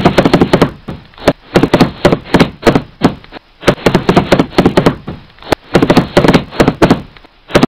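Heavy stomping footstep sound effects: a loud, irregular run of thuds and knocks, several a second, with short pauses between groups.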